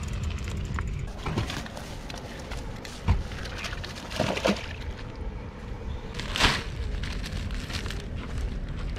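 Handling noises over a steady low rumble: a sharp knock about three seconds in, then short splashing and rustling sounds as roach are dropped back into the river and a plastic bag is handled.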